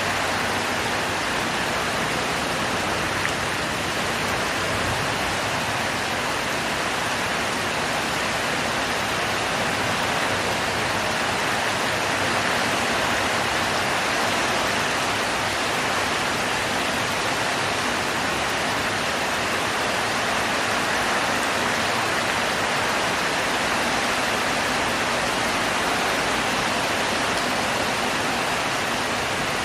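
Heavy rain falling steadily, a dense even hiss with no single drops standing out.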